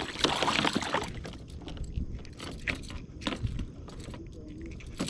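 A trout splashing and thrashing in the water at the side of a kayak for about a second while it is put on a stringer, followed by scattered faint clicks and knocks as it is handled.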